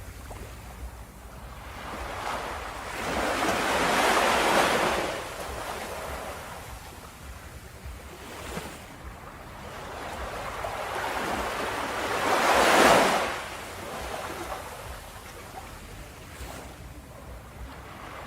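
Ocean surf on a beach: two waves swell and break about eight seconds apart, the second one louder, with a low wash of water between them.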